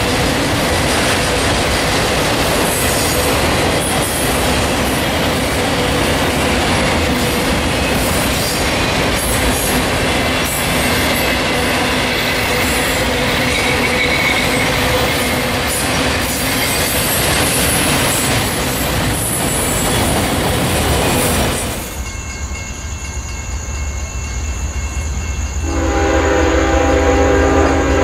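Long freight train of autorack cars rolling past, a continuous rumble and rattle of wheels on rail with a thin steady squeal. About 22 seconds in this gives way abruptly to a quieter low engine hum, and near the end a CSX ES44AH locomotive sounds its multi-note air horn as it approaches.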